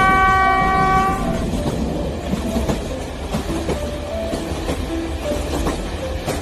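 A toy electric train running on plastic track with a steady low rumble and clatter of wheels; right at the start its horn sounds once, a single held tone lasting about a second and a half.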